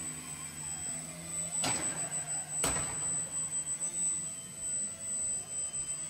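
Electric motor and propeller of a Click R2 indoor aerobatic model plane, running with a hum whose pitch slides up and down as the throttle changes while the plane hovers nose-up. Two short sharp knocks about a second apart, near two seconds in.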